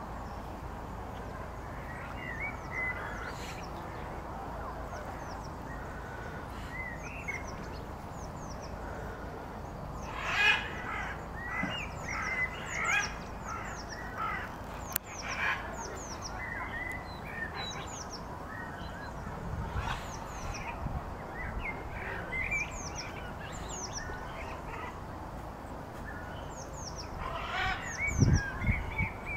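Outdoor birdsong: many small birds chirping in short, high, falling notes over a steady background hiss, with a run of louder calls about halfway through. A few low thumps near the end.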